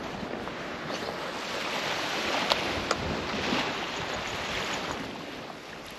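Surf breaking on a shingle-and-sand beach, a wash of noise that swells and eases over a few seconds, with wind on the microphone. Two short sharp clicks come about two and a half and three seconds in.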